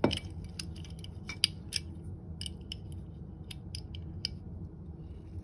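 Irregular light metallic clicks and ticks as a steel coil spring is worked by hand into the ratchet mechanism of a Raptor ratcheting plastic pipe cutter.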